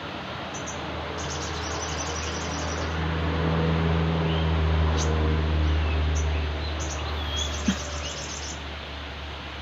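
Sogon bird calling in short runs of very high, thin, rapid chip notes, repeated several times. Under it runs a low steady hum that swells through the middle and fades, and a single sharp click comes near the end.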